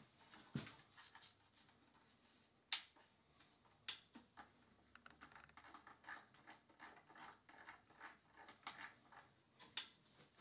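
Quiet clicking of a GVM LED video panel light being handled and adjusted on its stand: a few sharper clicks and knocks, then a quick run of small clicks as its control knobs are turned and the setting on its display changes.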